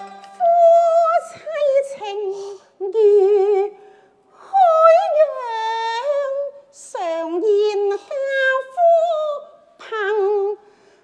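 Cantonese opera singing: a high voice with heavy vibrato sings short phrases, pausing briefly between them, with no instruments behind it.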